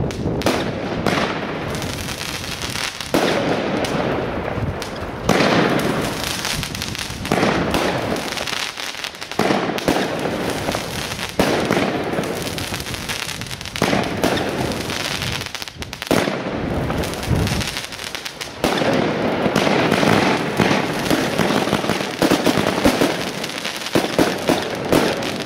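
Timewarp 36-shot firework cake firing shot after shot, about one every two seconds. Each launch is followed by a long, dense crackle as its crackling tail and crackle stars burst.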